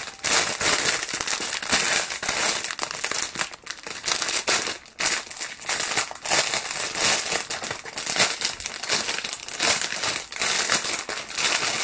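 Clear plastic bag crinkling and crackling continuously as it is handled and pulled open, in dense, close-up rustles.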